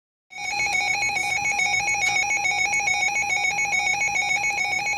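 Emergency Alert System header tones: a rapid electronic warble that chatters between a lower and a higher pitch without a break, starting about a third of a second in. They are the coded data burst that opens a severe thunderstorm warning broadcast.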